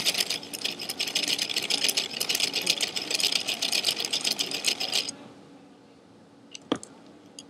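Laser-cut thin wooden gears (an outer ring gear and two inner gears) clattering their teeth together in a rapid rattle as the set spins. The rattle stops suddenly about five seconds in, followed by a single light knock.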